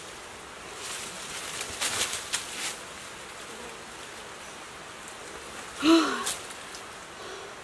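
Leaves and thin branches rustling as a person pushes and climbs through dense undergrowth, over a steady forest hiss. About six seconds in comes a short vocal sound of effort, falling in pitch, the loudest thing here.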